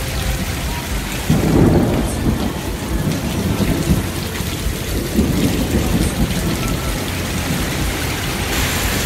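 Heavy rain and hail pelting down in a severe thunderstorm, with thunder rumbling, swelling about a second in and again around the middle.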